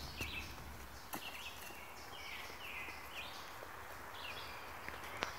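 Birds chirping, a steady string of short calls about two a second, with a few faint knocks, one a little louder near the end.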